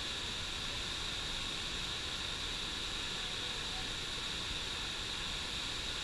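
Steady, unbroken rush of a waterfall and the whitewater rapids below it.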